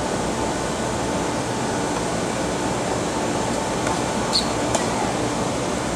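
Steady hiss of outdoor background noise with a faint steady hum. About four and a half seconds in come two short, sharp high sounds from play on the hard tennis court.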